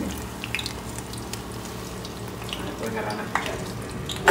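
Beaten eggs frying in hot oil in a pan: a steady sizzle with scattered crackles. A sharp knock sounds right at the end.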